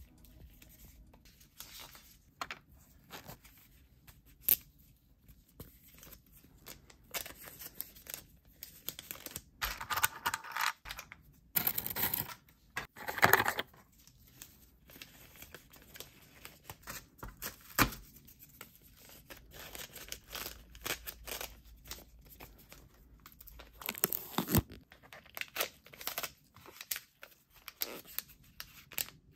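Plastic packaging pouches crinkling and rustling in gloved hands as small items are packed into one, with scattered light clicks and taps. The crinkling comes in louder bursts around the middle and again toward the end.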